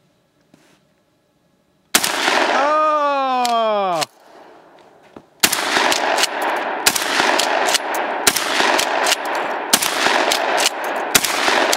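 Gunfire: from about five seconds in, a rapid, continuous string of loud shots. Before it, about two seconds in, a loud sound sliding down in pitch for about two seconds.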